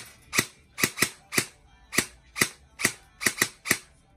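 G&G ARP9 airsoft electric rifle (AEG) firing single shots on semi-auto through a chronograph for an FPS check, reading around 350 FPS. About ten sharp shots come in quick, uneven succession, some in close pairs.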